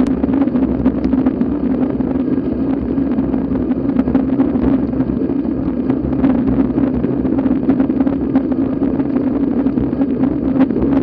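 Steady rush of wind and road noise on a bike-mounted action camera's microphone, from a road bike riding at about 35 km/h, with a constant low drone under it.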